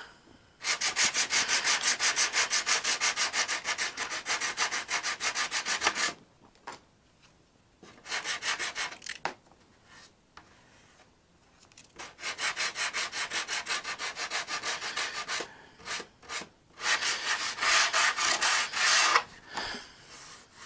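Hand sanding of a filler-putty wing fillet on a balsa model airplane: sandpaper rubbed back and forth over the fillet in quick strokes, about four a second, in several bursts with short pauses between them.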